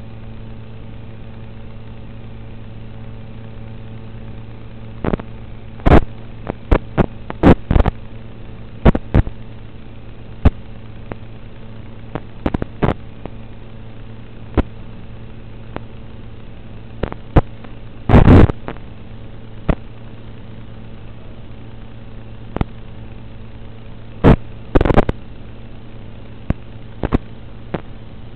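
Steady electrical hum on an analog FPV video receiver's recording, broken by irregular static crackles and pops. The pops bunch up several times, and the loudest burst comes about eighteen seconds in.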